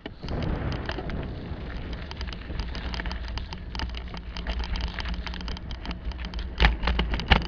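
Bicycle rolling over a cracked, patched concrete path: steady tyre rumble with a constant rattle of small clicks and knocks, and two hard jolts near the end as the wheels hit bumps.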